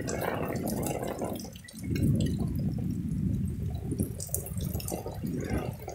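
Heavy downpour hissing and splashing on wet paving, with runoff water running; the sound dips briefly about one and a half seconds in.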